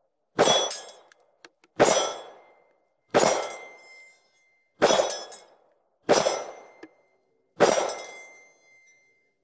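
Six 9 mm pistol shots from a Ruger MAX-9 striking a steel target, each a sharp crack and metallic clang that rings and dies away, some leaving a clear ringing tone. The shots come steadily, about one every second and a half.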